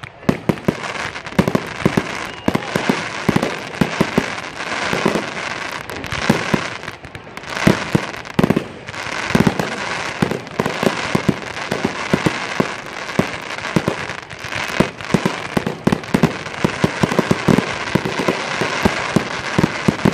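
Aerial fireworks going off in a rapid, unbroken barrage: many sharp bangs a second over a steady crackle from glittering crackling stars.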